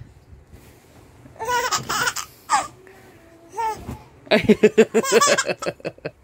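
A baby babbling and giggling: a few short high-pitched sounds, then a quick run of giggles about four seconds in.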